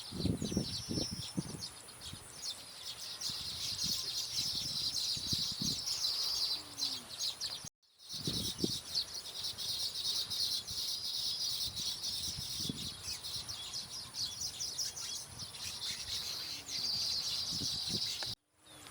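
Baya weavers chattering: a dense, continuous twitter of high chirps over a steady high whine, broken by two brief dropouts, one about eight seconds in and one near the end.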